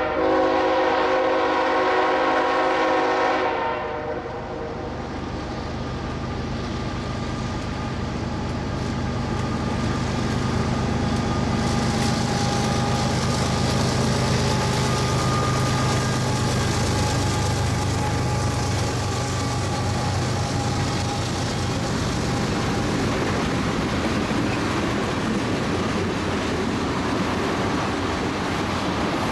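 Diesel freight locomotives sound a multi-note air horn chord for about three and a half seconds at the start, sounded for the grade crossing. The locomotives then pass with the steady drone of their diesel engines, and a long line of tank cars follows with continuous wheel-on-rail noise.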